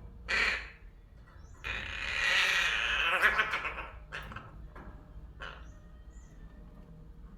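Young pet crow giving a long, harsh, raspy call, preceded by a short squawk and followed by a few faint clicks.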